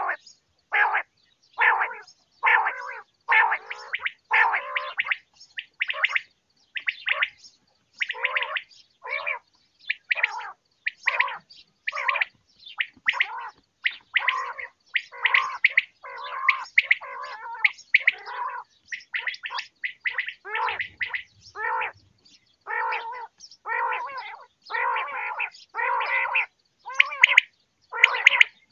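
Common quail calling over and over in short calls, about one and a half a second with brief gaps between them: a quail-call recording of the kind played to lure quail when hunting.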